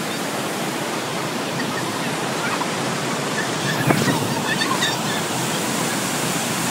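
Steady rush of the Kjosfossen waterfall at close range, with faint voices over it midway.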